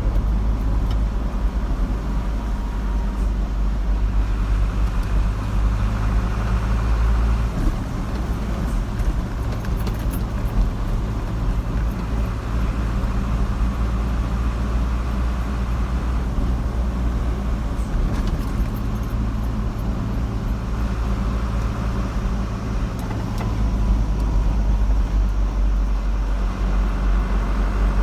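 Car driving along a road: steady engine and tyre noise with a deep rumble, which eases off for a stretch in the middle and comes back stronger near the end.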